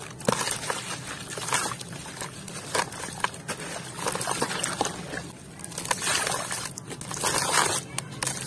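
Gritty chunks crumbled and squeezed by hand in a tub of muddy water: wet grit crackles and water sloshes in irregular bursts.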